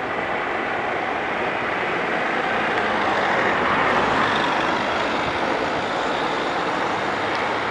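Eurocopter EC135 helicopter in flight: a steady rush of rotor and turbine noise that swells a little around the middle.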